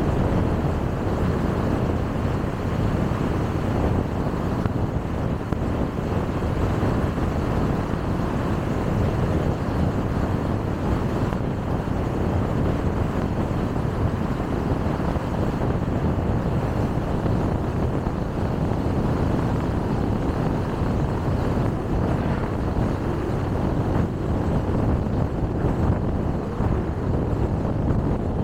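Steady road noise from a car driving at speed on a highway: tyre rumble and wind, unchanging, with no separate sound standing out.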